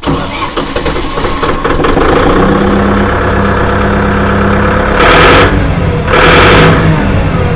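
A Kubota MU5501 tractor's four-cylinder diesel engine cranks and fires up, then settles into a steady idle. It is revved up briefly twice near the end.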